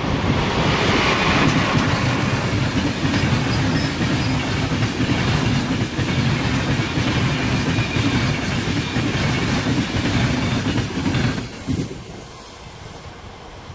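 Passenger train hauled by an electric locomotive passing close by at speed, its wheels clattering over the rail joints as coach after coach goes past. The sound drops away sharply about twelve seconds in as the last coach clears.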